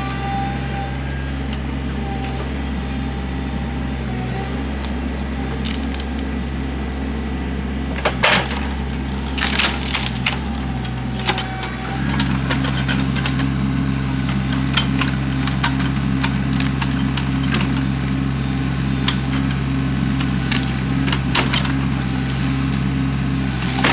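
Excavator engine running steadily while trees and brush crack and splinter under the machine. There is a cluster of loud snaps about eight to eleven seconds in, then the engine works harder from about twelve seconds in, with more scattered snapping.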